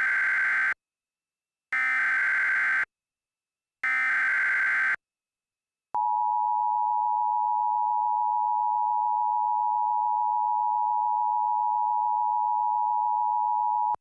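Emergency Alert System transmission: three short bursts of screeching SAME header data tones, each about a second long and about two seconds apart, which encode the alert's type and area. At about six seconds in comes the steady two-tone EAS attention signal (853 and 960 Hz), held for about eight seconds, announcing the emergency message that follows.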